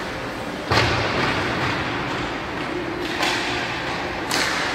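A loud thud against the ice rink's boards and glass about a second in, with a rumbling ring afterwards, then two shorter scraping hisses, typical of hockey skates on the ice, over steady arena noise.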